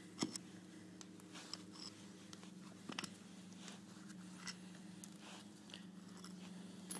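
Faint scattered clicks and scrapes of steel bolts being unscrewed from an ATV differential housing and set down, a few seconds apart, over a steady low hum.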